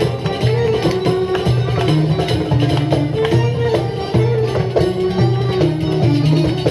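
Instrumental folk music in a Middle Eastern, Ottoman style. An ornamented melody slides between notes over a repeating bass figure, with a steady hand-drum and tambourine rhythm.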